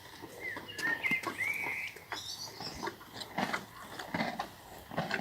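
A bird's chirping calls, a few short whistled notes in the first two seconds with a quick high twitter after, then a series of short crunching clicks and rustles.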